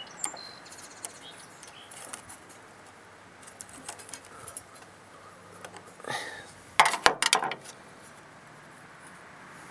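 Light metallic clicks and taps of a thin metal tool working at the float pin of a small-engine carburetor, with a quick cluster of sharp clicks about seven seconds in. Birds chirp faintly now and then.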